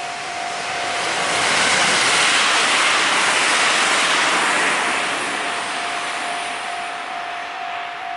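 Level-crossing warning bell ringing with a steady, regularly pulsing tone while a train passes. The train's noise swells about a second in, drowns the bell at its loudest and fades after about five seconds.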